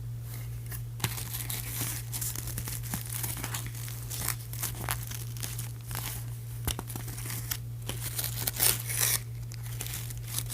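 Toy packaging being handled and pulled open: irregular crinkling, crackling and tearing of plastic and cardboard, with a steady low hum underneath.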